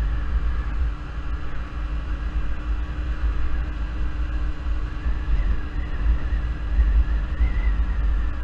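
Yamaha Zuma 50cc scooter running steadily at cruising speed, its engine a constant drone under heavy wind rumble on the microphone.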